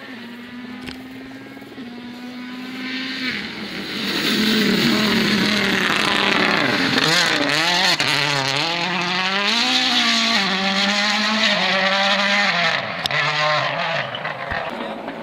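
Toyota Yaris WRC rally car's turbocharged four-cylinder engine approaching at speed, passing close and fading away. The revs rise and fall sharply again and again as it goes through the corner, loudest in the middle.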